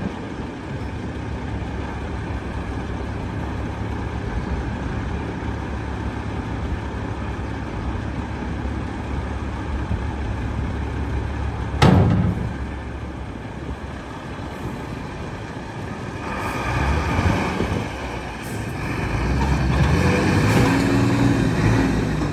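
Renault 320dCi dump truck's diesel engine running steadily while the tipper body is lowered, with a single sharp bang about twelve seconds in as the body comes down on the chassis. Near the end the engine rises in pitch as the truck pulls away.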